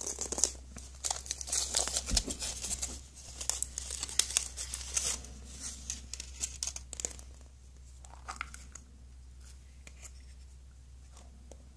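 Aluminium foil wrapper crinkling and tearing as it is peeled off a plastic surprise egg, dense for about the first seven seconds. After that come lighter clicks and rustles as the plastic egg is pulled open.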